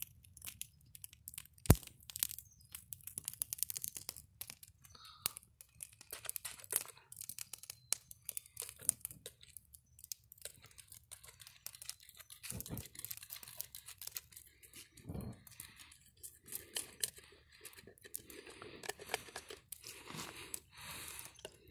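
Dry leaves crackling and crunching in a dense run of small, irregular snaps, with one louder sharp snap about two seconds in.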